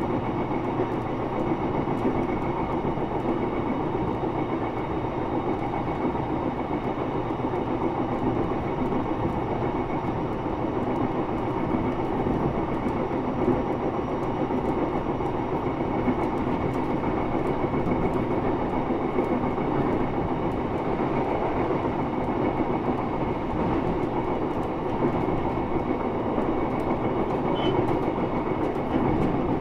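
Running sound inside a JR East E129 series electric train with Toyo IGBT-VVVF traction, rolling along at a steady pace. Wheels on rail and motor noise go on without a break, with a faint steady high whine above them.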